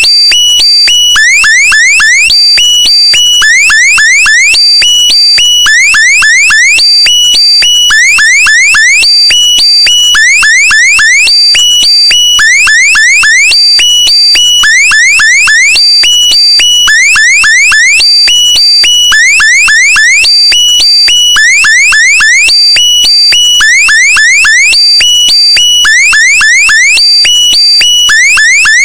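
Looped electronic meme sound effect: a cluster of quick rising chirps repeating about every two seconds over steady high-pitched tones, alarm-like and loud.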